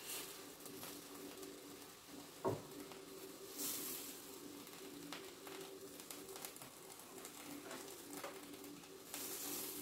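Faint sizzling of dosa batter as it is spread in circles with a ladle across a hot pan, over a low steady hum. There is a single knock about two and a half seconds in, and short bursts of hiss near four seconds and near the end.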